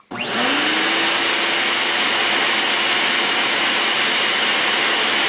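Skate sharpening machine's grinding-wheel motor switched on, spinning up within the first half second, then running at a steady whine with a dense hiss.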